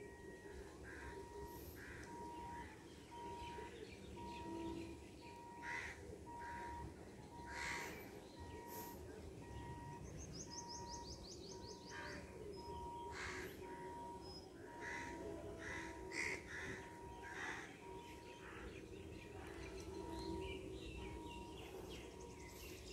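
Birds calling again and again, crow-like caws among them, over a faint, evenly repeating electronic beep.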